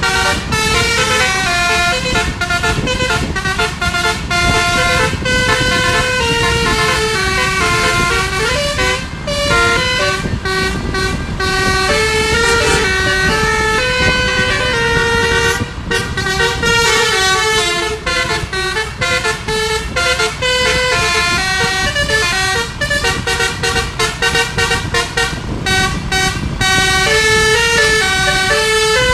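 Bus telolet 'basuri' musical horn playing a tune, one note after another with short breaks between them, over a low rumble from the bus.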